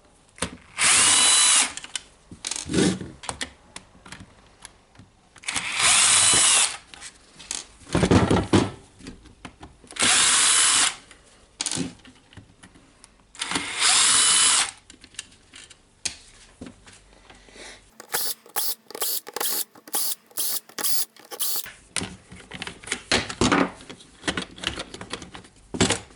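A cordless power screwdriver spinning in four short bursts of about a second each, backing out the screws of a drill's housing, with clicks and rattles of parts being handled between them. A quick run of evenly spaced clicks follows about eighteen seconds in.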